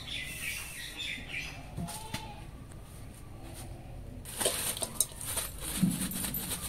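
Small birds chirping for the first second or so. Later comes a run of clicks and rustling with a louder knock near the end, as raw chicken pieces are handled in a metal wok.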